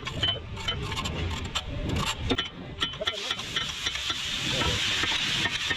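Metal hand tools clicking and clinking against an engine during disassembly. From about three seconds in, a steady hiss builds and holds.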